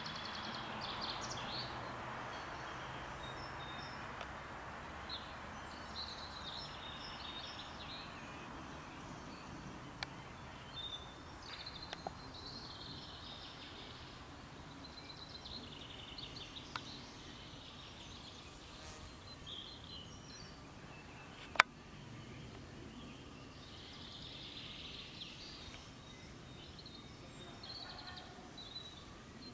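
Birds chirping and calling at intervals over a steady hiss of background noise, with a few sharp clicks, the loudest about twenty seconds in.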